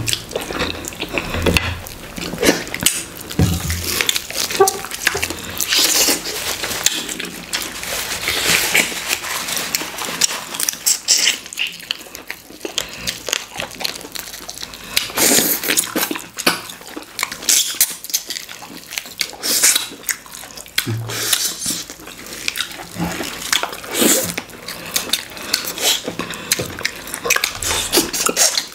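Wet eating sounds of fufu and okra stew with goat meat eaten by hand: chewing, lip-smacking and squelching, a rapid irregular run of short wet clicks and smacks.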